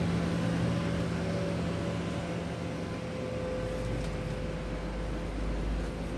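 Steady mechanical hum with a constant low drone and a fainter higher tone, joined by a deeper rumble about halfway through.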